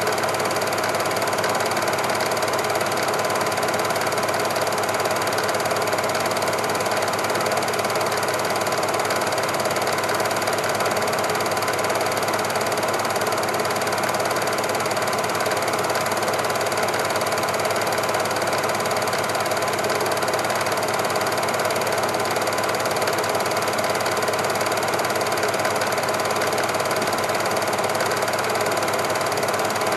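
Super 8 cine projector running: a steady, very fast mechanical clatter from the film-advance mechanism over a constant motor whir.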